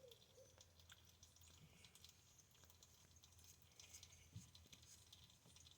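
Near silence: faint room tone with a low hum and a few scattered faint clicks.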